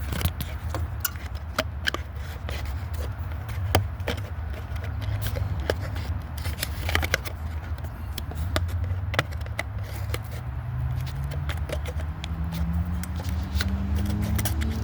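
Scattered light clicks and scrapes of metal parts being handled while an ignition coil is fitted to a small engine, over a steady low hum.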